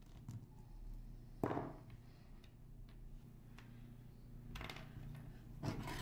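Small knocks and clicks of parts and tools being handled on a workbench while through-hole TRRS jacks are fitted and soldered to a keyboard circuit board. The loudest knock comes about a second and a half in and rings briefly; lighter ones come near the start, past the middle and near the end, over a steady low hum.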